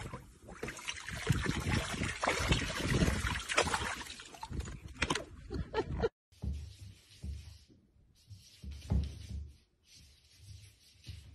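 A dog splashing and sloshing about in a shallow paddling pool, a busy run of water noise that stops abruptly about six seconds in. Then a cat paws at a mirror, with a few faint soft taps and thuds.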